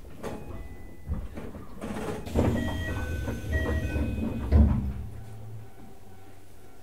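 Keisei 3000-series commuter car at a station stop, heard from inside: the sliding doors open with thuds and short electronic chime tones over about four seconds, then the stationary car settles into a steady low hum.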